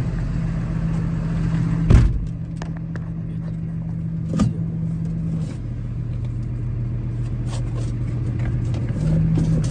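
6.7 Cummins diesel idling inside the truck cab, running at a raised idle that drops to a lower idle about halfway through and steps up again briefly near the end: the automatic idle-up that comes on when the hydraulics are worked. Two short knocks about two and four seconds in.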